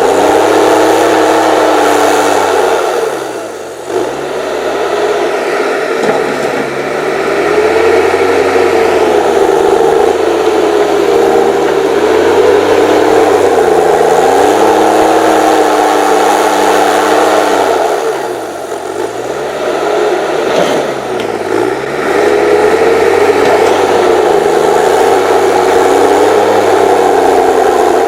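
HSM 904 S forestry machine's 6.7-litre diesel engine working hard, its revs rising and falling again and again. The revs drop sharply and pick back up twice, about four seconds in and again near nineteen seconds.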